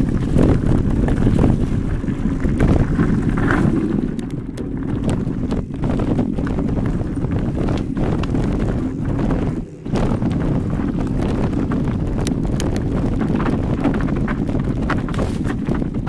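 Wind rushing over the microphone of an electric mountain bike ridden along a dirt forest trail, with frequent short knocks and rattles from the bike going over bumps. The noise briefly drops away just before ten seconds in.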